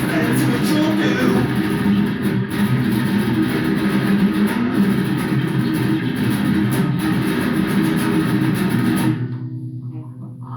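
Heavy-metal band playing a fast song: electric guitar, bass guitar and drum kit together. About nine seconds in the drums and upper guitar drop out, leaving a quieter, low pulsing riff.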